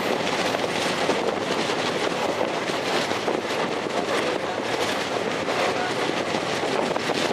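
Train running steadily, a continuous rumble with a fast clatter of wheels over the track.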